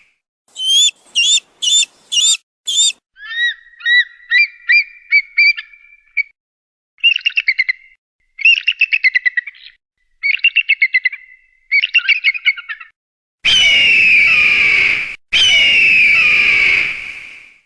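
Eagle calls: a quick run of five high down-slurred whistles, then a series of piping notes, several bursts of fast chattering trills, and near the end two long, harsh screams, the loudest sounds here.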